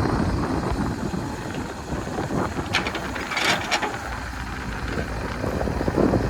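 A heavy earthmoving machine's diesel engine running with a low rumble, with a short cluster of sharp metallic clinks about three seconds in.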